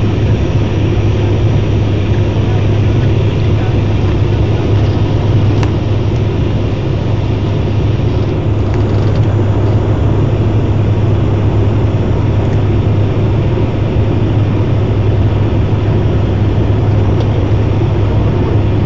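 Cabin noise of a Fokker airliner on landing approach: a steady engine and airflow drone with a strong low hum.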